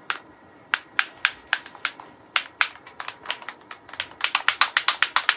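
A bottle of airbrush paint being shaken, rattling in sharp clicks: sparse and uneven at first, then quickening to a fast, even run of about eight a second from about four seconds in.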